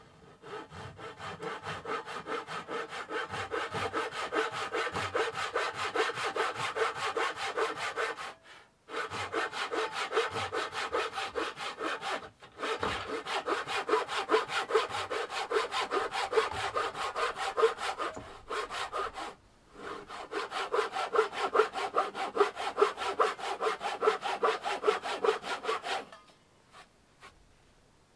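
Handsaw cutting through an old wooden board in quick, even back-and-forth strokes, with short pauses about a third of the way in, near the middle and after two thirds; the sawing stops shortly before the end.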